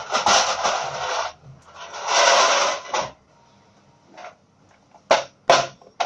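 Scraping and rustling of a plastic ice container being taken out of the freezer and handled, in two stretches of about a second each, then three sharp clacks near the end as ice cubes are reached for in the container.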